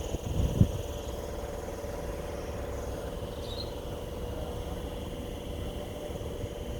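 Wind rumbling on the microphone, with a low thump from a gust about half a second in, over a steady droning hum and a faint high steady buzz.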